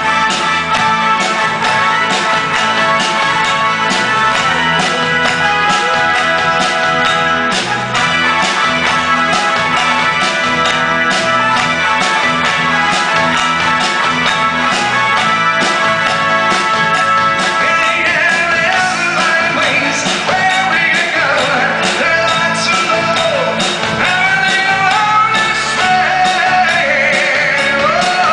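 A live rock-and-roll band playing in a theatre, with guitars, bass and drums. The first part is instrumental; a lead vocal comes in about two-thirds of the way through.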